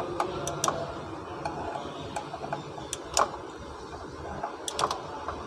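Light metallic clicks and taps from hands handling the aluminium valve body of an automatic transmission, small metal parts knocking against it at irregular intervals, the loudest about three seconds in.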